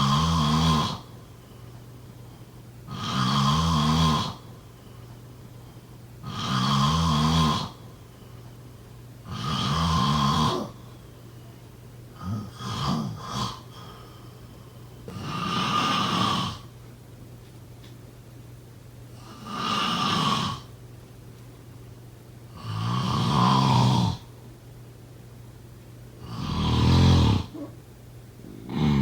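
A person snoring steadily in deep sleep, one rumbling snore on each breath about every three to four seconds. Midway one breath breaks into three short, choppy snores.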